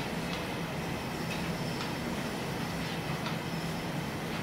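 A steady rumbling noise with a faint hum, with a couple of faint scrapes as a long metal ladle stirs cooked rice in a large aluminium cooking pot.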